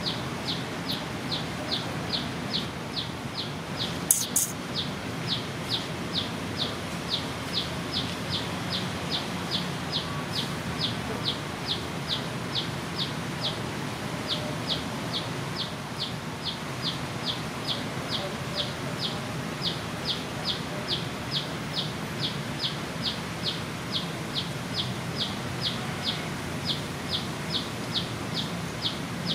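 Steady high chirping from a small animal: one short chirp about twice a second, evenly spaced the whole time, over a low background hum. A single sharp click comes about four seconds in.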